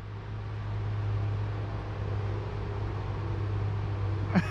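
Heavy diesel machine engine running steadily, a constant low hum with no revving.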